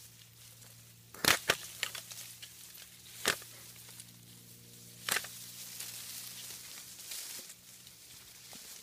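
Long-handled loppers snipping through sasa bamboo stems: sharp snaps about a second in, a quick second one right after, then single snips around three and five seconds, with leaves rustling between the cuts.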